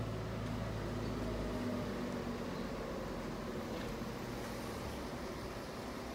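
Big Dog K-9 chopper's S&S V-twin idling steadily, heard as a low, even hum; the deepest part of the hum drops away about two seconds in.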